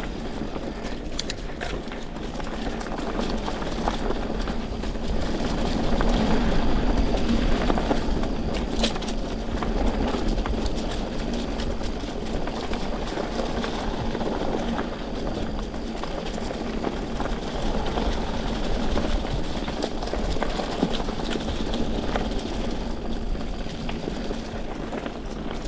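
Mountain bike riding along a leaf-covered dirt trail: steady tyre and rolling noise with a few sharp clicks and knocks from the bike.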